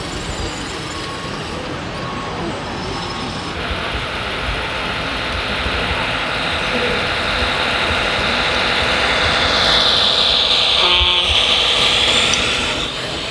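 Radio-controlled model trucks running, a whine that builds over several seconds and falls away near the end, with a short tone about eleven seconds in and voices in the background.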